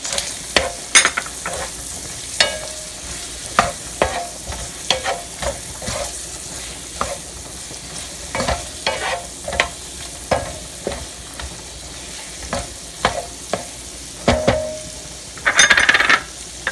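Shrimp and minced garlic sizzling in butter in a frying pan, stirred with a wooden spoon that scrapes and taps the pan bottom again and again. A louder rush of sound comes near the end.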